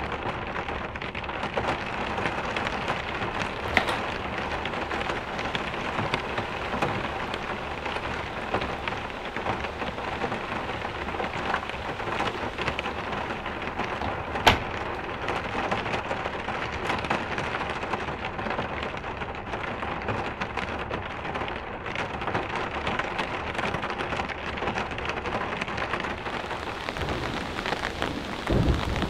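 Steady rain falling, an even hiss of drops, with a few sharp drop impacts close by and a short low thud near the end.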